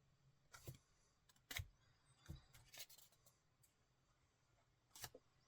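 Faint, brief rustles and light taps of paper stickers and sticker packets being handled, about five of them spread over the few seconds, with near silence between.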